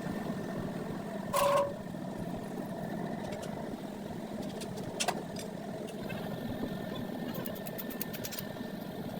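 A steady mechanical running noise, like a small motor or engine. About one and a half seconds in there is a short, loud tone, a sharp click comes about five seconds in, and faint quick ticks follow near the end.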